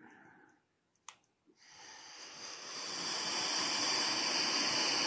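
A sharp click about a second in, then a steady hiss of air that swells over a second or two and holds.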